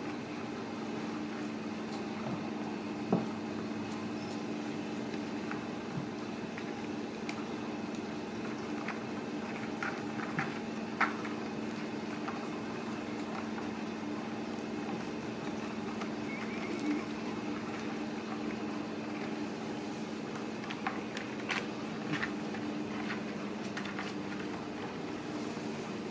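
A steady low mechanical hum with scattered light taps, scratches and scrabbles from kittens' paws and claws on cardboard scratchers and a hardwood floor. A few sharper knocks stand out, one about three seconds in and another about eleven seconds in.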